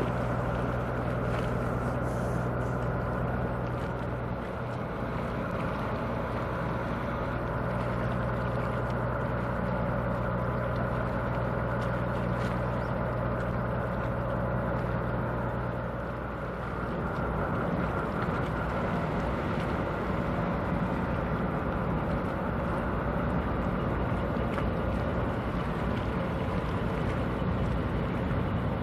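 Car ferry Ferry Hinase's engines running at the quay: a steady low drone made of several held tones. About 16 seconds in the engine note changes as the lowest tones drop out and shift.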